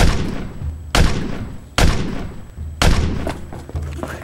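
Four gunshot sound effects, about a second apart, each a sharp bang that fades away, fired along with a finger-gun pantomime in a mock video-game shootout.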